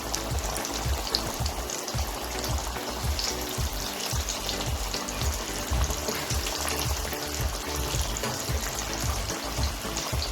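Flour-coated chicken wings deep-frying in very hot oil: a steady, dense sizzle.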